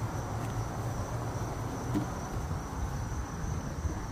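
Plastic air filter box cover being handled and lined up on its locating tabs, with one light plastic tap about two seconds in, over a steady low hum and a thin, steady high-pitched tone.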